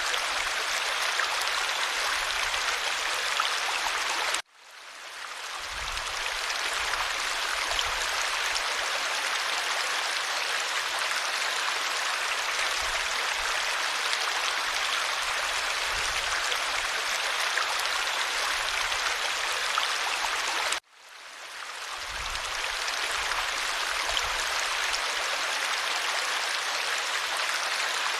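Clear stream water running over stones, a steady rushing babble. It cuts out abruptly twice, about four and a half seconds in and again near twenty-one seconds, each time fading back in over a second or two where the recording is looped.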